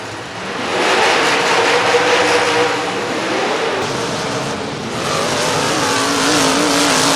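Demolition derby car engines revving, their pitch wavering up and down, over a dense, steady wash of noise.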